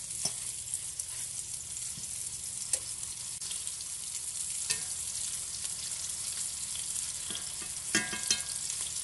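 Slices of ground-lamb gyro meat sizzling steadily as they fry in their own rendered fat in a cast-iron skillet. A fork clicks and clinks against the pan now and then as the slices are turned over, loudest in a quick pair of clinks near the end.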